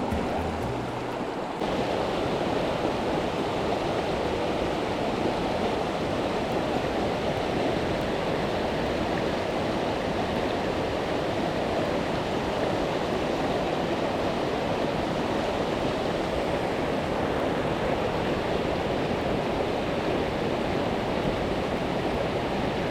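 Steady rush of a fast mountain river running at high water: an even, unbroken noise of moving water.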